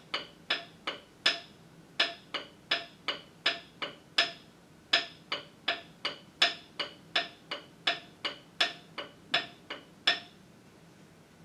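Rhythm sticks struck together, tapping out a rhythm pattern: a string of sharp, ringing clicks in an uneven pattern of short and longer gaps. They stop shortly before the end.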